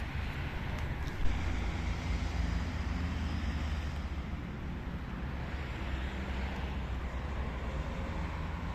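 Steady low rumble of distant road traffic in the open air, with one short knock about a second in.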